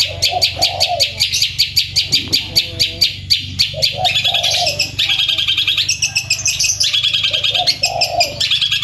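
Long-tailed shrike (cendet) singing loudly: a fast run of sharp, repeated high notes, about five a second, breaking about four seconds in into quicker rolling trills with lower warbled notes between them.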